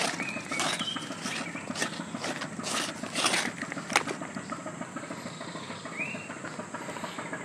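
Footsteps crunching through forest-floor litter at a walking pace, about two steps a second, stopping about three and a half seconds in after a sharp click. A few short high chirps come over a faint steady high whine.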